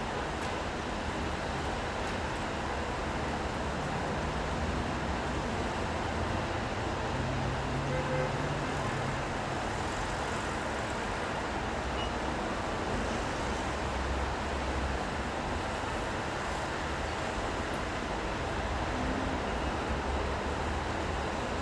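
City street traffic in the rain: a steady hiss of rain and wet road, with the low hum of vehicle engines swelling past about four seconds in and again around the middle.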